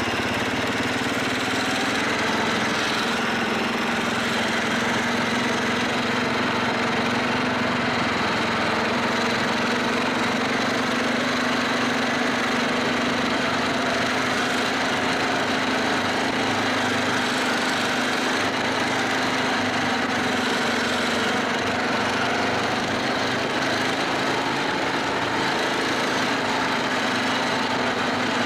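Snowmobile engine running steadily at an even pitch, heard from the rider's seat while cruising along a packed trail.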